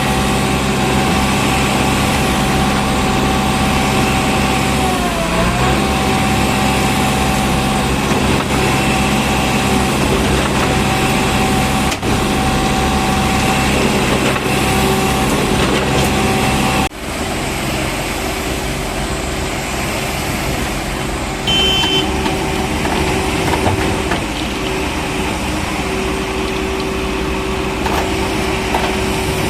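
Heavy diesel vehicle engine running steadily, its pitch dipping briefly about five seconds in. The sound drops abruptly in level about seventeen seconds in, and the engine keeps running.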